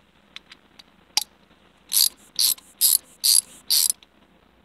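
Stubby half-inch drive ratchet ratcheting: five quick rasping runs of pawl clicks, about two a second. They come after a few light clicks and one sharper snap.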